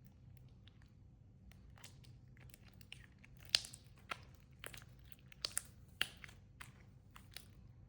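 Hands kneading and stretching homemade glue-and-lotion slime, making irregular sticky clicks and pops, with a few louder pops in the middle. The slime is still tacky and not quite set.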